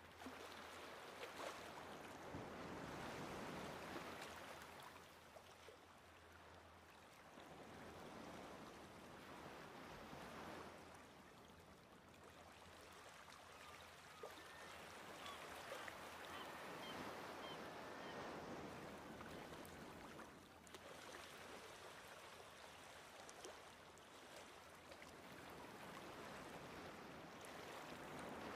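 Faint outdoor ambience: a soft rushing noise that swells and fades every several seconds, with a few faint high chirps about halfway through.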